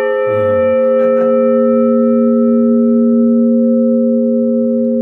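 Wichita City Hall's large tower bell ringing on after a single strike, heard up close: a deep hum with several steady overtones that holds strongly while the higher partials slowly die away.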